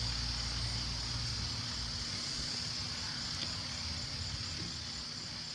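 A motor vehicle's low rumble fading away over the first two seconds, over a steady high hiss.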